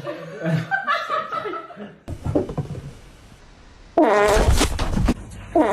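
A voice laughing in short 'hahaha' bursts. About four seconds in comes a loud buzzing, fart-like noise lasting about a second and a half, which starts up again near the end.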